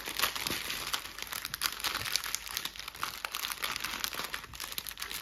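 Plastic packaging crinkling and rustling as it is handled and folded, a steady run of small crackles.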